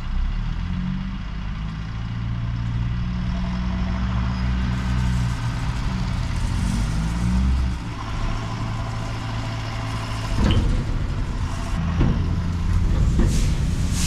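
Heavy diesel engines of a triple road-train truck and a tractor labouring under load as they pull a loaded chaser bin out of soft dirt where it has sunk. The deep engine note rises and falls, and a couple of sharp knocks come near the end.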